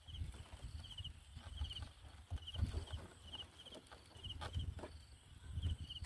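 Outdoor ambience: a short, high, pulsed chirp repeated about once a second, over low rumbling and a few soft knocks.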